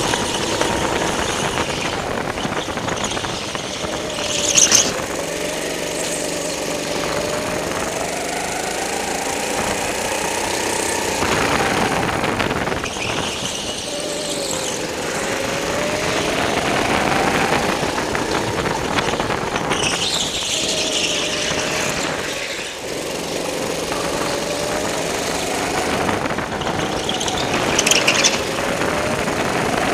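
Go-kart motor running under the driver, its pitch rising and falling as it speeds up on the straights and slows for the corners. Short tyre squeals a few seconds in, about two-thirds of the way through and near the end, as the kart slides through turns.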